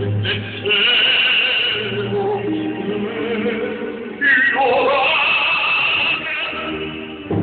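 Male opera singer with a symphony orchestra, recorded live from the audience; the music swells about four seconds in.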